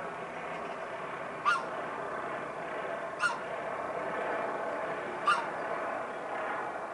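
MD 902 Explorer twin-turbine NOTAR helicopter flying past, a steady drone from rotor and turbines. A short, sharp animal call cuts through it three times, about two seconds apart.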